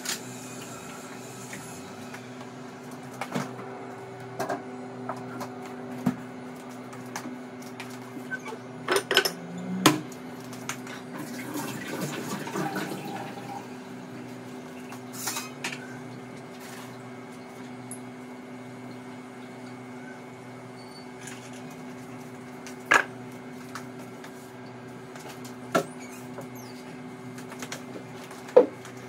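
Kitchen work sounds: scattered knocks and clinks of dishes and utensils on the counter, with a stretch of running water at the sink in the middle, over a steady low hum. A louder knock comes near the end as a plastic step stool is moved.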